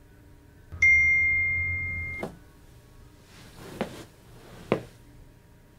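A single bright electronic ding about a second in, ringing and fading for about a second and a half before cutting off with a click. Two short clicks follow about a second apart.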